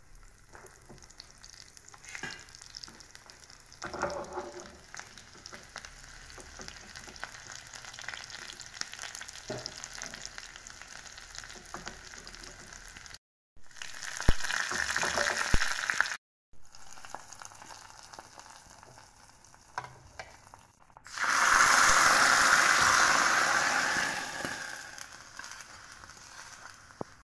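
Small shallots frying in hot oil in a small tempering pan, with a steady sizzle. About halfway, curry leaves go into the oil and sizzle loudly. Near the end the hot tempering is poured into the coconut curry, with the loudest sizzle, which fades over a few seconds.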